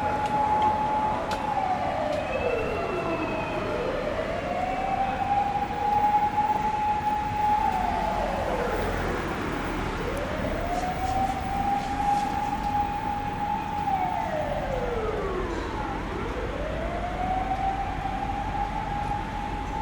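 Fire engine siren sounding a slow wail: the pitch climbs, holds high for several seconds, then slides down, repeating about every six seconds, heard over a low road and engine rumble.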